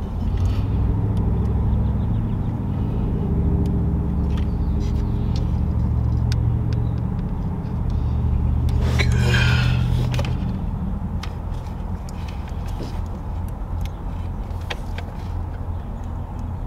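A vehicle engine rumbling steadily, easing off about ten to eleven seconds in. Over it come scattered small clicks and rattles of a wiring connector being worked into place by hand.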